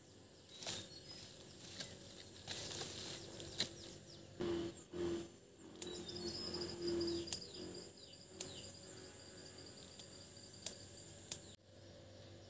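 Water spinach picked by hand: leaves rustling and stems snapping, with several sharp clicks. Birds and insects call in the background, with a high trill in the middle.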